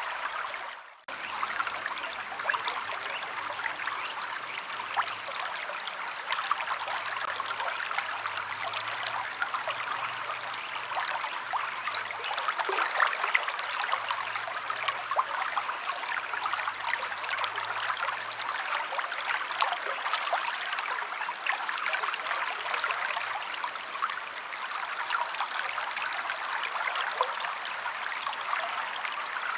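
Stream water flowing, a steady rushing trickle, with a few faint high bird chirps now and then. The sound drops out briefly about a second in.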